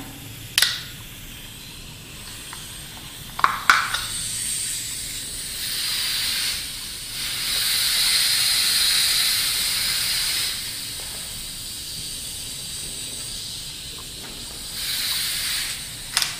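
CO2 BB pistol firing a few sharp shots, with a loud hiss of escaping CO2 that swells for several seconds in the middle and comes back briefly near the end. The gas is leaking from the CO2 cartridge itself, which the owner thinks is at the cap on its top, while the gun keeps firing.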